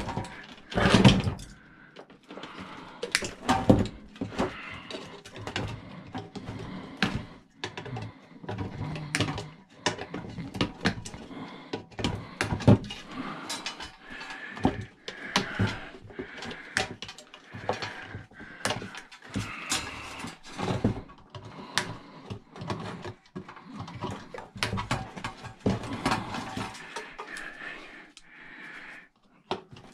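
Hand tools and metal parts of a garage door opener clicking and clattering on a workbench as its wiring and parts are worked loose: a string of irregular clicks and knocks with handling noise between.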